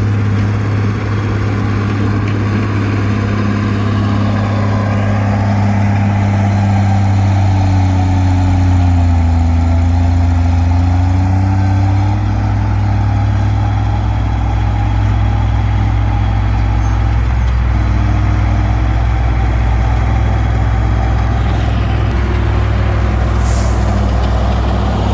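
Diesel engine of a Komatsu D20P bulldozer running steadily under load while pushing brush; its note sags and recovers a little about a third of the way in, and a short hiss comes near the end.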